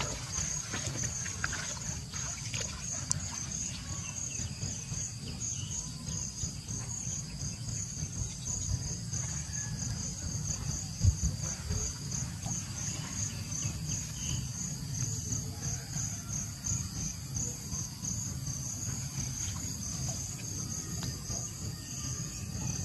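Insects chirping in a steady, evenly pulsing high drone, over a low rumble. A single sharp knock sounds about halfway through.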